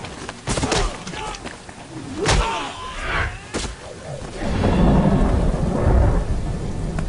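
Movie fight sound effects in heavy rain: several sharp wooden staff blows and thuds over steady rain in the first few seconds, then a loud low rumble in the second half.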